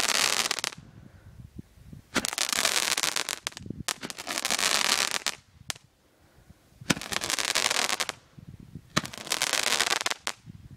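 Fireworks spraying sparks in repeated hissing bursts, each lasting about a second and starting with a sharp crack. Four bursts follow one another with short gaps between them, and single sharp pops fall in some of the gaps.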